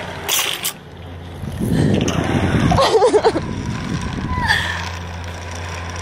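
Wind rumbling on the microphone as the rope swing moves, loudest between about one and a half and three and a half seconds in, with a short burst of voice about three seconds in.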